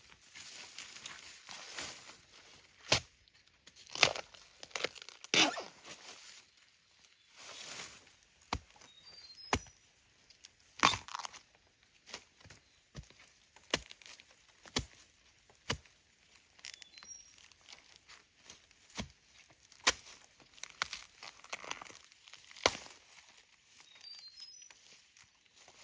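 Bamboo shoots being broken and torn by hand: irregular sharp snaps and rasping tears, spaced every second or two.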